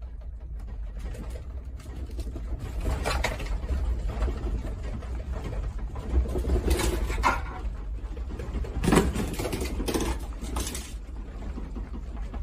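Objects in a room rattling and clattering as the building shakes in an earthquake, over a steady low rumble, with louder bursts of rattling about 3, 7 and 9 to 11 seconds in.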